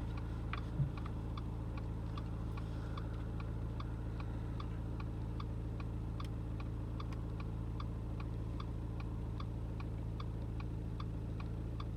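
A car's indicator relay ticking steadily, a little under two ticks a second, over the low, even hum of the car's idling engine, heard inside the car. One soft thump about a second in.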